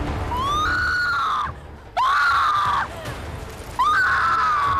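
A person screaming three times, each a long, high cry of about a second that rises sharply and then slides slightly down.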